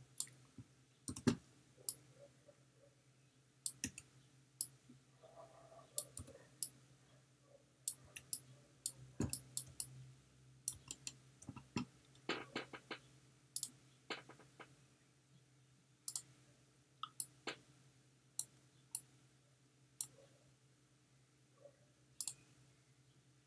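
Irregular, fairly quiet clicks of a computer mouse and keyboard, sometimes in quick pairs, over a faint steady low hum.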